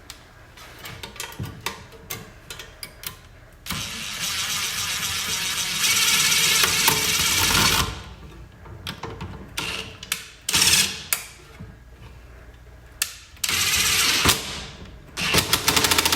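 Impact gun running in several bursts as it drives the intake's fasteners. The longest burst runs from about four to eight seconds in and gets louder partway through, and shorter bursts follow near the end with a rapid hammering. Small clicks and clatter of tools and parts come between the bursts.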